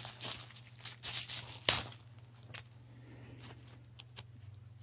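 Plastic packaging being handled by hand: crinkling and rustling with a few sharp clicks over the first two seconds, then only a few faint ticks over a low steady hum.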